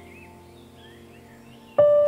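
Soft background music with chirping, bird-like high glides over quiet held tones, then a loud new note comes in suddenly near the end.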